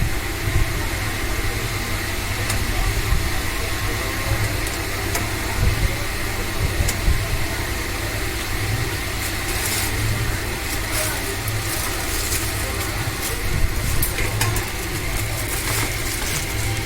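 Barsha table fan running at high speed: a steady rush of air with a low rumble underneath and a faint steady whine.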